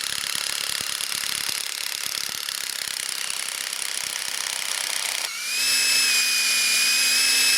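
Cordless drill boring a broken screwdriver bit into live tree wood, hot enough to smoke: a rough, chattering grind for about five seconds, then the motor's whine comes in steady and louder.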